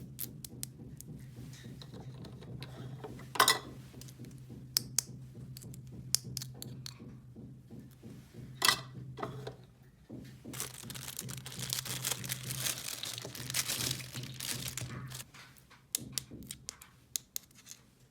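Small toy pieces and packaging being handled: scattered sharp clicks and knocks, and a stretch of crinkling or tearing of wrapping from about ten to fifteen seconds in. A steady low hum runs underneath.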